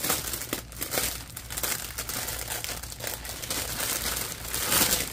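Clear plastic wrapping crinkling and rustling as hands open and pull it off a bundle of diamond-painting drill bags, a little louder near the end.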